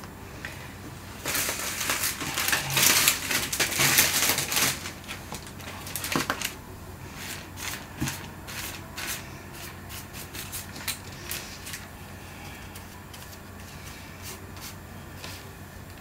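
Large flat paintbrush scrubbing acrylic paint across a collaged paper journal page: a loud, scratchy brushing for a few seconds near the start, then lighter, intermittent strokes and scrapes that fade out in the second half.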